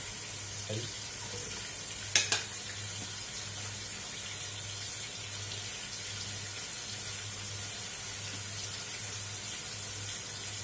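Sautéed spices and aromatics frying in oil in a steel pot, giving a steady sizzle under a low hum. Two sharp clicks come about two seconds in.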